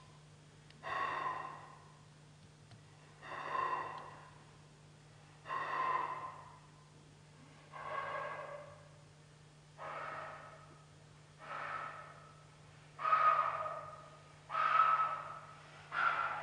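Breathy, faintly pitched exhalations, about one every two seconds and each lasting about a second, growing louder, a little higher and a little quicker toward the end. A faint steady low hum runs underneath.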